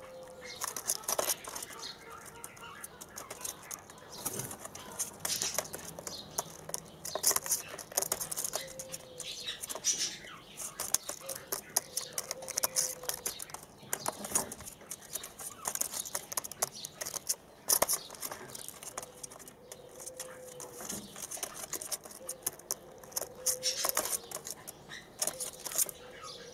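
Young white Barbary doves moving and preening in a wire cage: scattered sharp clicks, scratches and rustles from feet, beaks and feathers on the cage floor and wire.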